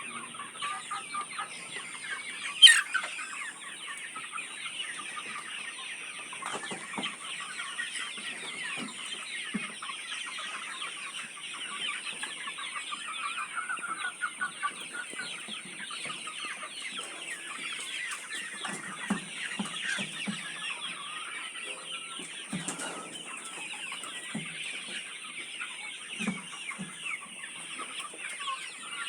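A flock of chickens clucking and calling, many birds at once in a continuous dense chatter, with one loud sharp squawk about three seconds in.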